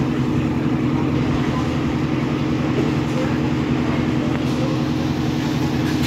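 Small tilting-drum concrete mixer running steadily, its motor giving an even, unbroken hum as the drum turns.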